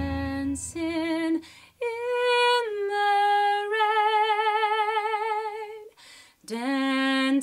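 A woman singing solo a cappella, with no accompaniment. She sings several short phrases, then holds one long note with vibrato from about four to six seconds in, and starts another phrase after a brief pause.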